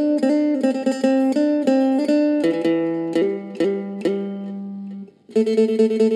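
Acoustic phin, the Isan lute, played with a pick: a melody of plucked notes over a ringing drone. After a short break just past five seconds, it goes on with fast, dense picking.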